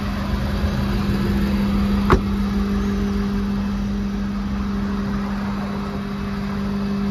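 A Ford F-550's 6.7-litre Power Stroke V8 turbo diesel idling, a steady hum over a low rumble. A single sharp knock sounds about two seconds in.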